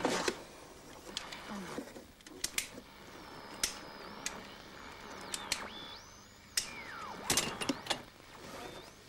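Electronic computer-game sound effects: synthesised bleeps that slide and jump in pitch, with a long falling tone about two thirds of the way through, among scattered sharp clicks.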